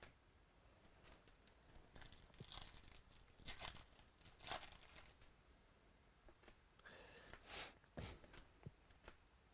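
Faint rustling and tearing of a trading-card pack's foil wrapper being opened and crinkled, with cards handled, in two spells of short bursts.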